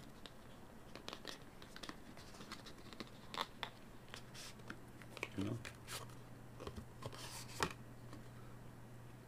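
Faint crinkling, tearing and scraping of packaging as a small earphone box is opened and its contents handled, with scattered sharp clicks and taps. A low steady hum runs underneath.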